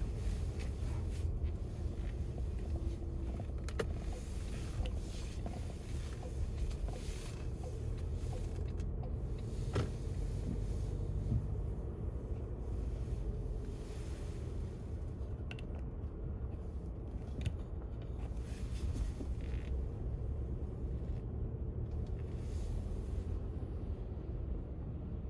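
Steady low rumble of road traffic, with a few faint knocks, the clearest about ten seconds in.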